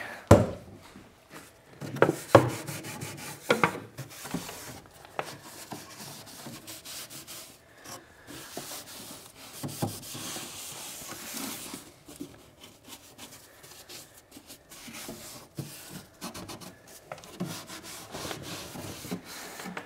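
Wooden shelves being handled in a wooden cabinet. A few sharp wooden knocks in the first four seconds, then light, irregular rubbing and scraping of wood on wood with small clicks.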